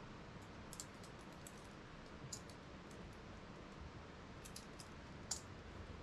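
Faint, irregular light clicks and clinks of metal climbing hardware, a dozen or so in scattered small clusters, over a steady low background hiss.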